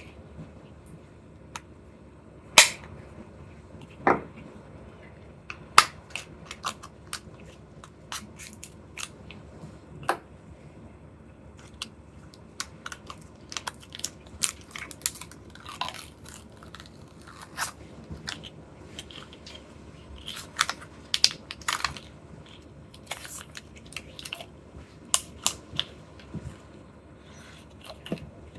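Packaging being handled and opened: irregular sharp clicks and crinkles of plastic wrappers and cases, a few loud snaps among many small crackles.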